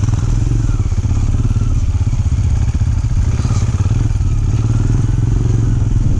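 Benelli Imperiale 400's air-cooled single-cylinder engine running steadily as the motorcycle rides along a rough dirt track, heard from on the bike.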